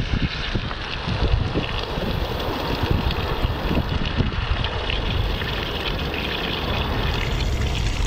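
Water running full blast through a steam boiler pigtail pipe, flushing out the buildup that had it half plugged. A steady rush with a strong low rumble.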